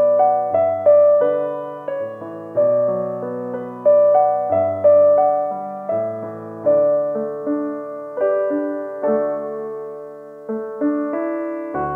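Piano music: a slow melody of notes struck one after another, each left to ring and fade.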